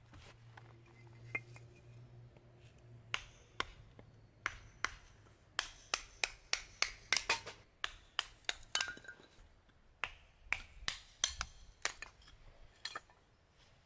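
Sharp knocks of a blade being struck down through a small upright stick of firewood, splitting it into kindling. A few light taps come first, then a run of irregular knocks, about two or three a second, from about three seconds in.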